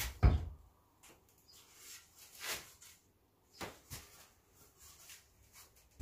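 A heavy knock just after the start, then scraping, rustling and light knocks as a 2mm acrylic sheet in its protective film is worked into the slot of a wooden frame.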